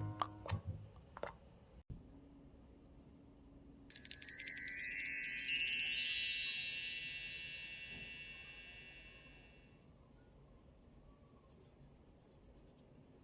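A chime glissando: a sudden cascade of high ringing chime tones about four seconds in, sweeping downward in pitch and dying away over about five seconds. Just before it, the last few notes of a light tune fade out.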